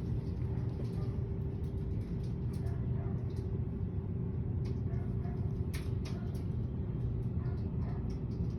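Steady low rumble of background noise with a constant hum, broken by a few faint clicks.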